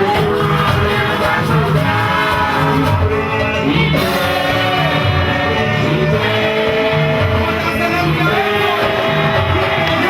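Music with singing over a steady, rhythmic bass beat.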